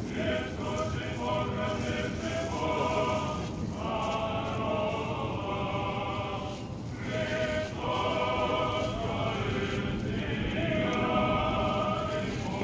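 Choir singing Orthodox Easter liturgical chant in long held phrases, about four in a row with short breaks between them.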